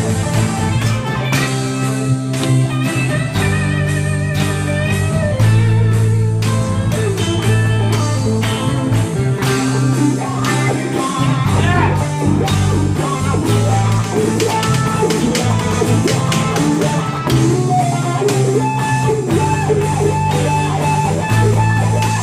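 Acoustic and electric guitars played together in a loose jam, with plucked melody notes over sustained low notes that change every second or two.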